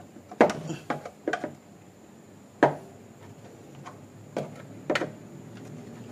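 Sharp clicks and knocks, about six of them spread irregularly, as a screwdriver pries at the retaining clips of a BMW E46 kidney grille from under the bonnet. The clips are stiff and hard to release.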